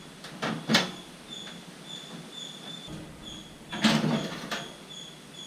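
The sheet-metal top cover of a microwave oven being worked off: two short metal knocks about half a second in, then a longer scraping clatter about four seconds in, ending in a knock.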